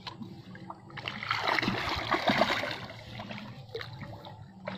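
A hooked patin catfish of about 13 kg thrashing at the water's surface as it is played close to the bank: a burst of splashing that starts about a second in and lasts about two seconds.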